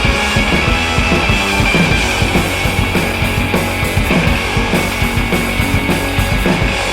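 Background rock music: loud, distorted guitar over a steady driving beat.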